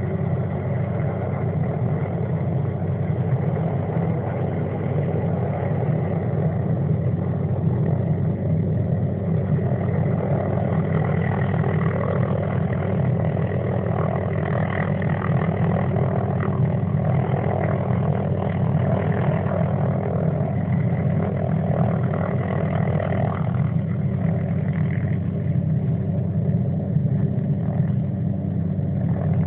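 Helicopter hovering, its rotor and engine giving a steady, unbroken drone.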